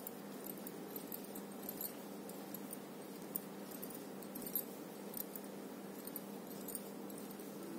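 Faint, scattered light clinks of metal bangles on the wrists as the hands work a crochet hook, a couple a little louder, over a steady low hum.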